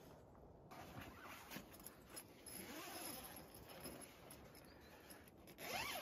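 Faint rustling and shuffling of tent fabric and bedding as someone stirs inside a tent, with a louder rising scrape near the end.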